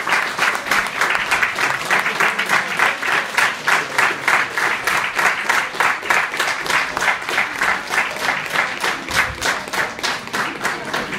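Small audience applauding, with separate hand claps close by standing out clearly.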